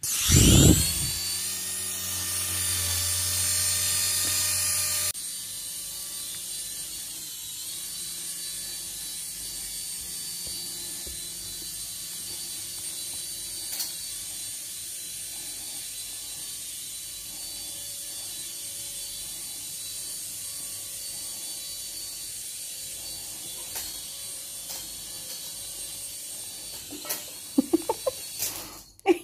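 Small motor and propeller of a light-up flying ball toy buzzing steadily, loud for about the first five seconds and then abruptly quieter for the rest. A few sharp knocks come near the end.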